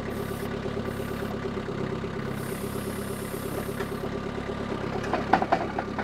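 Mini skid steer's engine running steadily, with metal clanks and knocks starting about five seconds in as the machine moves with a load.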